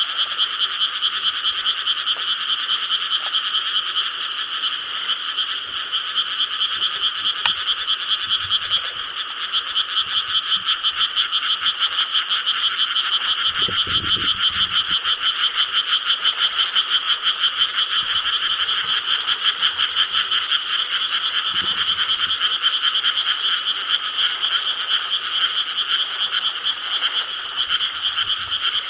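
A dense chorus of many frogs croaking in rice paddies, a continuous overlapping mass of rapid pulsing calls at an even level.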